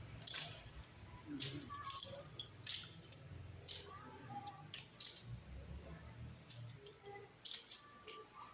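Goods and packaging being handled: a run of irregular sharp clicks, clatters and short rustles, about a dozen in all.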